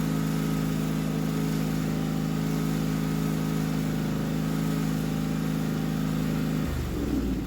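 Husqvarna GT52XLS garden tractor engine running at a steady speed while its hydrostatic transmission is purged of air. The engine note changes a little before the end.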